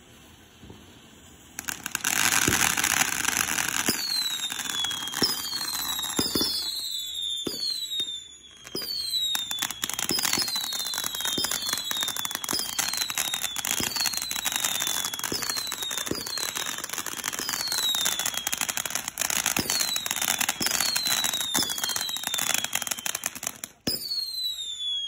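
Consumer ground firework going off: a fountain of sparks hisses and crackles from about two seconds in, and from about four seconds it fires a long string of whistling shots, each a short falling whistle, roughly one a second, amid sharp pops. It cuts off suddenly near the end.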